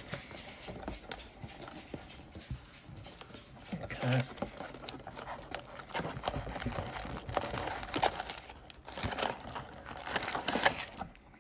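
Foil booster packs crinkling and rustling against each other and the cardboard box as a hand lifts them out, in a steady run of small irregular scrapes that grows busier about four seconds in.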